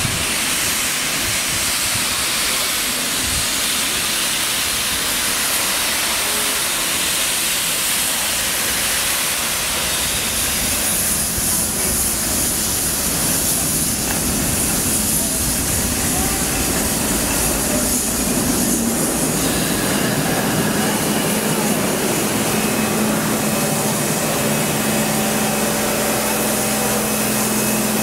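Steam locomotive 3801, a 38 class Pacific, moving slowly past at close range with a steady hiss of steam. From about ten seconds in, a steady low hum joins the hiss.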